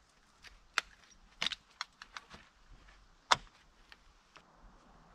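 Hand-held snap-setting press and metal snap fasteners clicking as snaps are set in a canvas cover: a string of irregular sharp clicks, the loudest a little over three seconds in.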